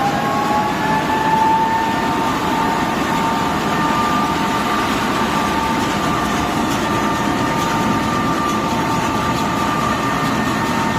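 Self-propelled peanut pickup harvester running with its main clutch engaged: the engine and the spinning pickup and threshing works make a loud steady din with a high whine of several tones, which have just wound up to speed and hold level.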